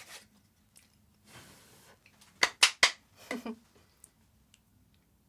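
Three sharp knocks in quick succession about two and a half seconds in, followed by a brief vocal sound, over a faint steady hum.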